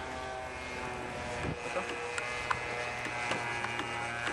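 Radio-controlled model airplane's engine running steadily overhead at a constant pitch, with a few faint clicks.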